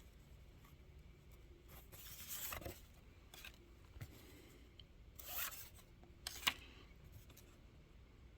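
Faint rustling and sliding of paper as old photographs are handled, with a few short rustles about two, five and six and a half seconds in.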